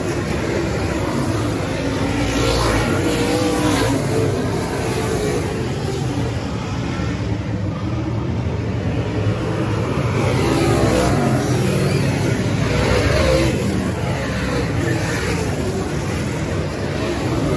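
Race car engines running hard on a track. The engine pitch rises and falls continuously, over a steady roar.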